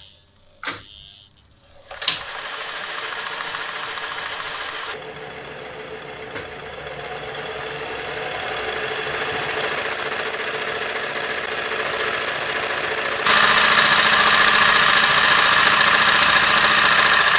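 An electric sewing machine motor, overvolted from a three-phase supply through a variac, starts with a click about two seconds in and runs steadily. It grows gradually louder, then jumps suddenly louder about thirteen seconds in.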